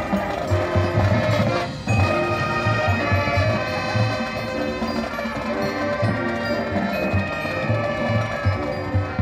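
High school marching band playing on the field: held brass chords over a repeated, pulsing low bass note.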